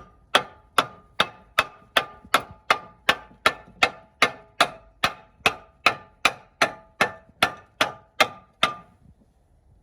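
A hammer striking metal in a steady rhythm, about two and a half blows a second, each blow leaving a short metallic ring; the blows stop near the end.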